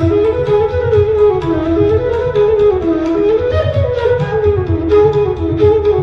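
Background music: a flute playing a winding melody over a low pulsing accompaniment.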